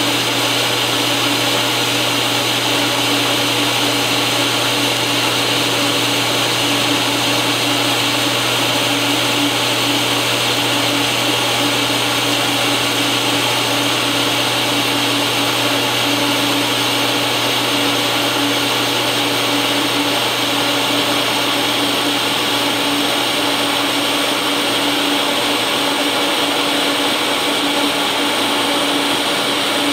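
TIG welding arc on stainless steel, running steadily at about 100 amps: a continuous buzzing hiss with no breaks.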